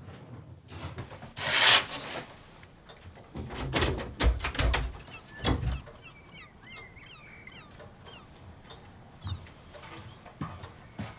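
A loud brief rustle, a few knocks and thuds, then small birds chirping in short high quick notes for a few seconds, with a couple of faint knocks near the end.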